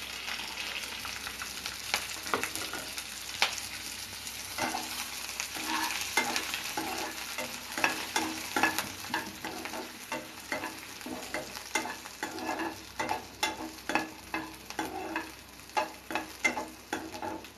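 Chopped onion with green chilli and curry leaves sizzling in hot oil in a kadai while being stirred, the spoon scraping and tapping the pan in repeated strokes that come closer together in the second half.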